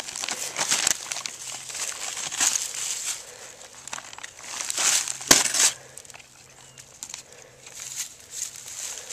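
Great Pyrenees dog tearing at a paper feed sack, the bag crinkling and rustling in repeated bursts, with one sharp snap about five seconds in.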